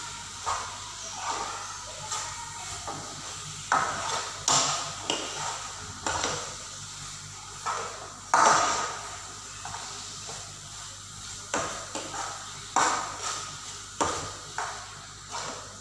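A metal spatula stirring and scraping grated carrot halwa around a frying pan as it fries in ghee, with irregular scrapes and knocks of the spatula against the pan, a few of them sharper and louder.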